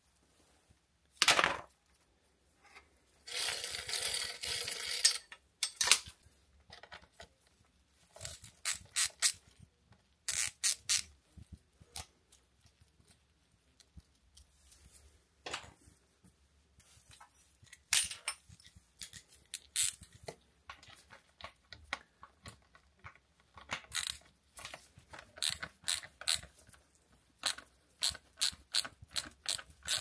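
Bicycle chain rattling and clinking as the old chain is pulled off through a SRAM Eagle GX 12-speed rear derailleur, with one longer rattle about three seconds in. This is followed by scattered metal clicks and knocks from handling the chain and derailleur.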